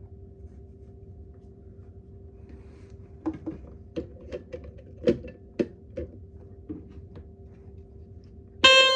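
Clicks and knocks of a 9V battery being fitted into a BRK 77R ionization smoke alarm, then near the end the alarm's Kobayashi CLB27 horn sounds a loud, shrill, steady tone for under a second: a false alarm on power-up, with the sensitivity set too high.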